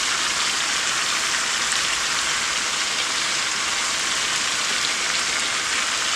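Chicken pieces and sausage frying in a pot on high heat: a steady, even sizzle.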